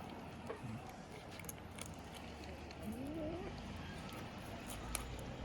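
A cat gives a single short rising mew about three seconds in, over a steady background with scattered light clicks.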